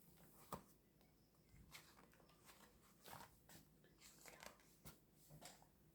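Near silence: quiet room tone with a few faint short clicks and rustles, the clearest about half a second in.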